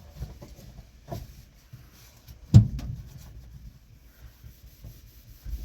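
Faint handling and rubbing noises with a few light knocks, and one sharp knock about two and a half seconds in.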